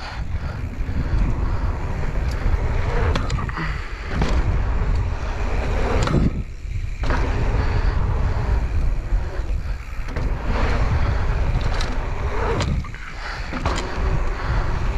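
Wind buffeting the microphone over the rumble of mountain bike tyres rolling on a packed-dirt jump line. The noise briefly drops away about six seconds in and again near thirteen seconds.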